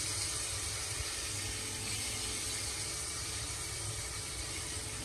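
Chopped tomatoes sizzling in hot oil with fried onion and spices: a steady hiss.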